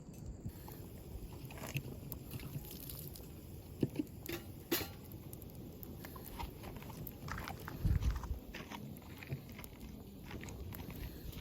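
Wood fire crackling in a FIREBOX G2 stove: irregular pops and snaps over a low steady noise, with a dull low thump about eight seconds in.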